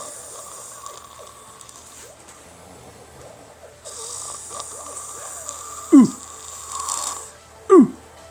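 A man snoring heavily in a drunken sleep: long, noisy snoring breaths, then two loud, short snorts falling steeply in pitch, about six and nearly eight seconds in.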